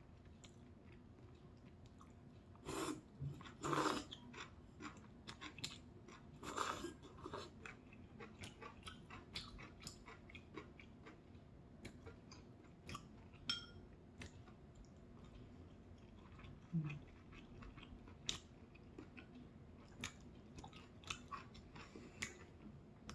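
Close-up chewing of kimchi udon noodles with bean sprouts and jeon: many soft, wet mouth clicks throughout, with a few louder bursts about three, four and seven seconds in.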